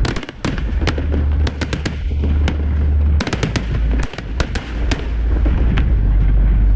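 Aerial fireworks bursting: a rapid, irregular string of sharp bangs and crackles over a continuous deep rumble.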